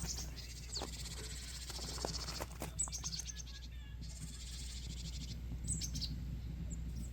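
High bird chirps and fast trills, a few short falling notes among them, over a steady low hum.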